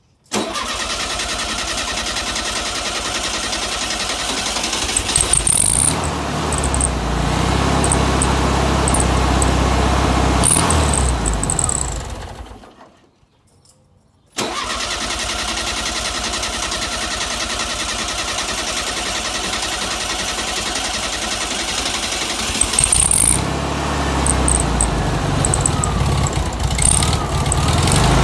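Volkswagen engine being cranked on the starter in two long attempts, with a short pause between them. In each attempt the steady cranking grows louder and deeper after several seconds; a car that won't start.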